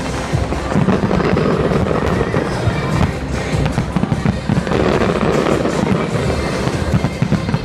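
Large fireworks display: shells bursting continuously in dense, overlapping bangs and crackles, with music playing along.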